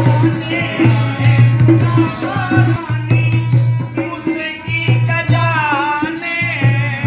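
A man singing a Ramlila verse in a bending melody, accompanied by a dholak drum beating steadily underneath and a harmonium holding its notes.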